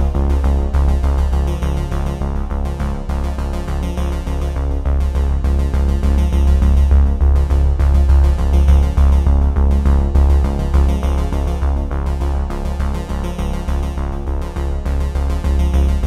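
Background music: an electronic piece with synthesizer over a steady deep bass.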